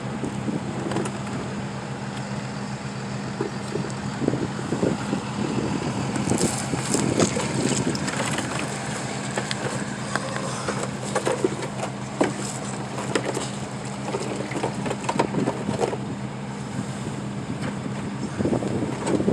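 Steady low hum of an idling engine, with scattered light knocks and clinks of tools at work under a truck.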